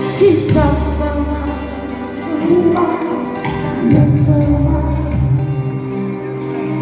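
Live band music: a slow ballad with held chords over a steady bass.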